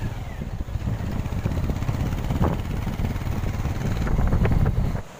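Motorcycle riding along with its engine running, mostly covered by a heavy, uneven wind rumble on the microphone. The sound cuts off abruptly just before the end.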